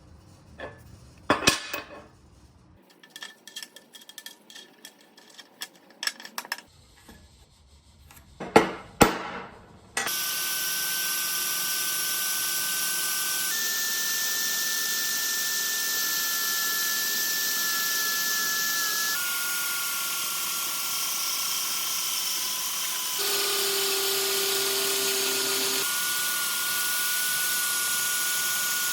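A few sharp metal knocks and clanks, then a power tool running steadily on steel. It gives a loud hiss with a steady whine whose pitch jumps at several abrupt joins.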